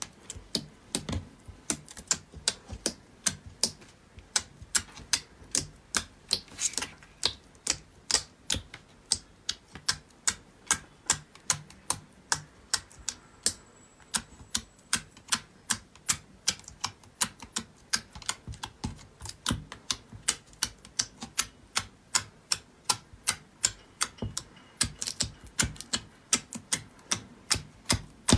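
Soft slime in a plastic tray being poked with a fingertip, each poke making a sharp click or pop, at an even pace of about two to three a second.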